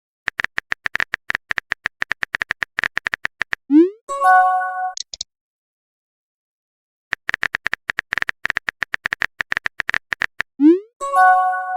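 Chat-app sound effects: rapid keyboard typing clicks for about three seconds, then a short rising swoosh and a brief chime as a message is sent. After about two seconds of silence the same typing, swoosh and chime come again, the chime starting near the end.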